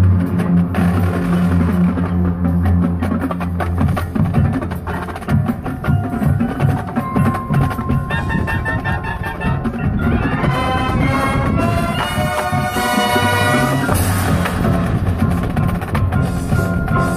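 High school marching band playing: sustained low brass chords at first, then a percussion-heavy passage of drums with quick runs of pitched notes in the second half.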